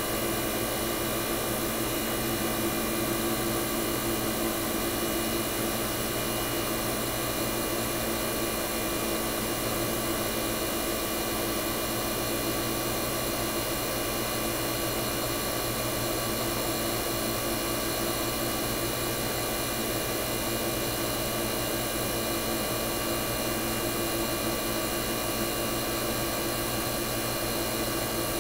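Vintage Tecumseh AJM hermetic compressor in a Fedders window air conditioner running with a steady hum, a stack of even tones that holds unchanged throughout.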